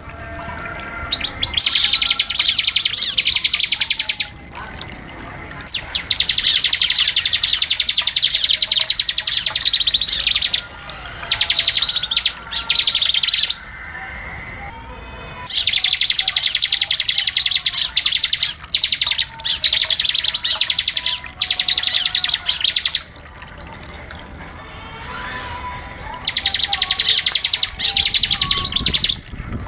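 Bar-winged prinia (ciblek) singing long, rapid high trills of a few seconds each, broken by short pauses, in the rattling "bren" style that ciblek keepers prize.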